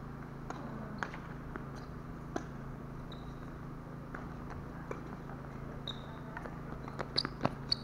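Tennis balls bouncing and being struck on a court: scattered sharp knocks at uneven intervals, clustering in quick succession near the end, over a steady low hum. A few brief high squeaks sound in between.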